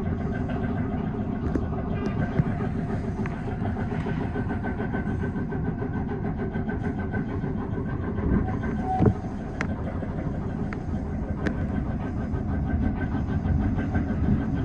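Tobu 6050 series electric train running at speed: a steady rumble of wheels on rail and running gear, with scattered clicks. About nine seconds in, a brief tone slides downward.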